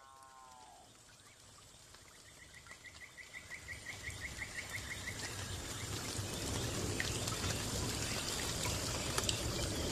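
Forest ambience fading in: a steady rush of running water with a thin, high insect drone. A falling tone dies away in the first second, and a rapid trill of about five to six notes a second sounds from about two to five seconds in.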